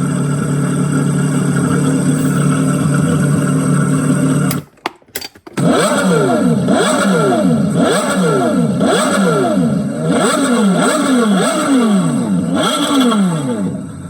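Recorded Porsche Carrera GT V10 engine sound played through a display stand's speakers: steady idle for about four and a half seconds, then a brief break with a few clicks, then a run of quick throttle blips, each rev rising and falling, before it fades out near the end.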